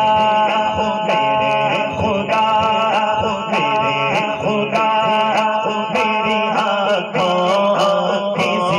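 A man's voice singing an Urdu naat unaccompanied through a microphone and sound system, in long, ornamented held notes that glide up and down.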